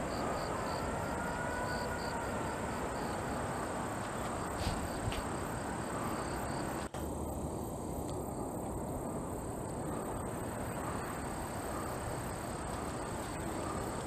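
Steady outdoor ambience dominated by wind noise on the microphone, with a faint high drone.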